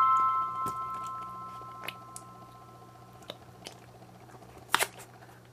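The last note of background music rings and fades out over the first two or three seconds. Soft squishing and a few small clicks and taps follow as slime is squeezed out of a silicone ice pop mold and the mold is handled. The loudest click comes near the end.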